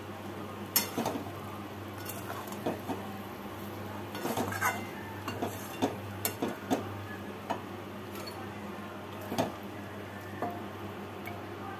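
A spatula and a spoon scraping and clinking against a metal kadai as cooked cauliflower and potato are stirred: a dozen or so irregular, sharp clinks.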